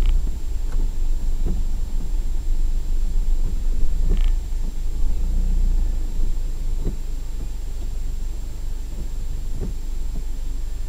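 Low rumble of a vehicle's engine and tyres heard inside the cab while driving, with a few light knocks along the way.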